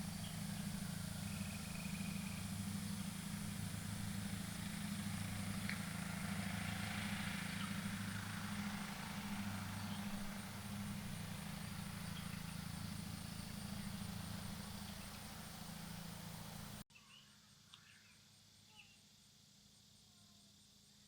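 An engine running steadily at a low, even pitch, cut off abruptly about seventeen seconds in. A quieter outdoor background with a few faint chirps follows.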